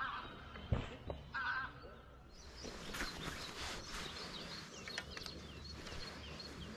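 Small birds chirping, with a run of short, high calls from about three seconds in, over faint outdoor background noise.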